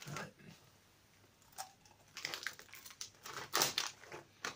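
Crunchy sweet and salty popcorn being chewed, in a few short irregular crackling crunches with quiet gaps between, mixed with rustling of the crisp packet.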